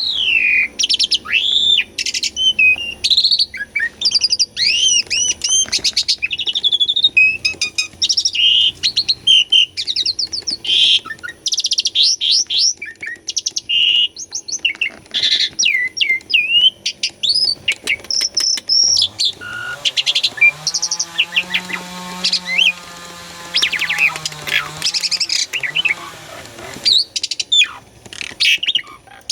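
Asian pied starling (jalak suren) in full song: a fast, continuous run of varied whistles, chirps and rattling notes. For several seconds in the second half a low droning tone rises in under the song, holds, and falls away.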